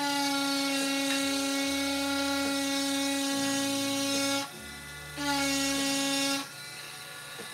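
Craft Dremel rotary tool with a ballpoint tip, grinding whisker lines into burned wood. It gives a steady high whine for about four and a half seconds, breaks off briefly, runs again for about a second, then stops.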